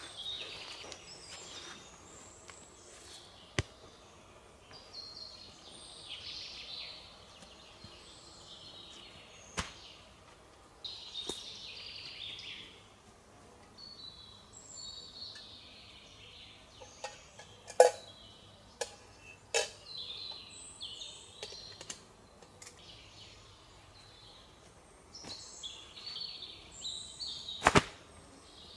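Forest birdsong in the background, coming in repeated phrases. A few sharp knocks and clicks from camping gear being handled and hung up inside a stick shelter, the loudest about two-thirds of the way in and near the end.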